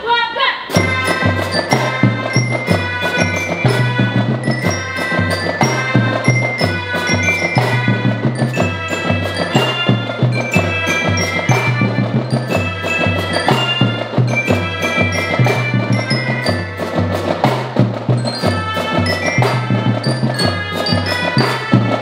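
Melodica marching band playing: mallet bells carry the bright melody over drums at a steady beat, with a low bass line stepping between notes in time.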